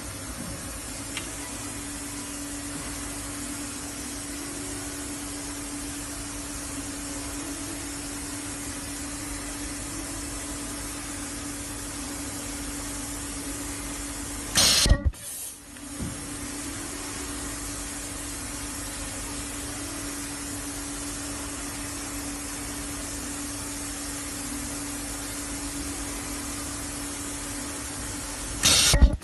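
Ribbon and lanyard ultrasonic welding machine running with a steady hiss and a low hum. Twice, about fourteen seconds apart, there is a loud, sharp burst of about half a second, typical of the machine cycling.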